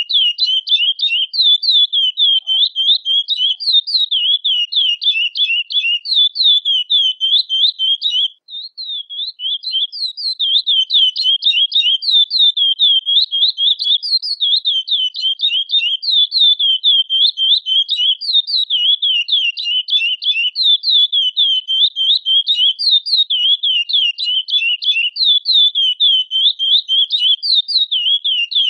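Chestnut-bellied seed finch (curió) calling with a rapid, unbroken run of short high chirps, several a second, with a brief pause about eight seconds in.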